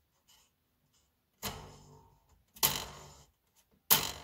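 A large coil spring inside a Philips record player's cabinet twanged three times, each sharp twang ringing on briefly and fading, the last the loudest.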